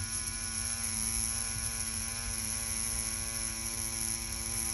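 Cordless tattoo pen machine buzzing steadily as its needle runs over synthetic practice skin with no ink. The pitch wavers slightly about two seconds in. A steady pitch is the sign of even hand pressure and even lines.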